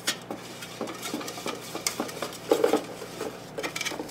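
Hard plastic parts of a hydroponic cloner clicking, tapping and rubbing as the manifold is handled and screwed onto the submersible pump, in irregular short knocks with a brief squeaky rub about two and a half seconds in.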